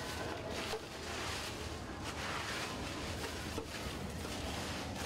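Soft brushing and rustling of dry leaves on a concrete floor, in swishes about a second apart, over a steady low background rumble.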